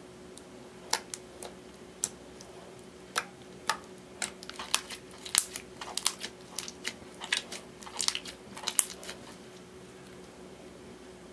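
Red clear slime with eyeshadow mixed in, squeezed and kneaded by hand, giving irregular sharp sticky clicks and pops. The pops start about a second in, come thickest in the middle, and stop shortly before the end.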